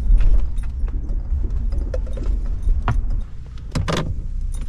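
Low rumble of a Ford pickup rolling slowly, heard inside the cab, with scattered clicks and knocks and a sharper knock near the end.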